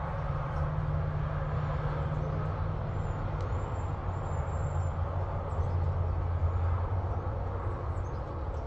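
Steady low outdoor rumble with a deep hum, like vehicle traffic or a running engine.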